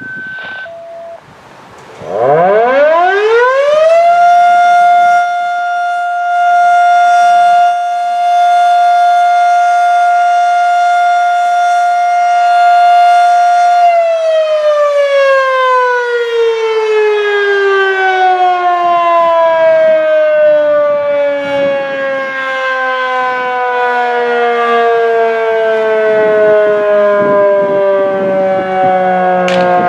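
Federal Signal Model 5 electromechanical civil defense siren sounding a test. It winds up over about two seconds to a steady wail, holds it for about ten seconds, then slowly winds down with falling pitch.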